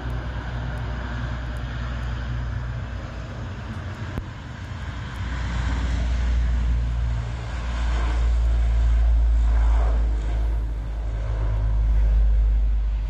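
Lockheed C-130 Hercules's four turboprop engines running as the aircraft rolls along the runway: a steady low rumble with a hiss above it, swelling louder about halfway through and again near the end.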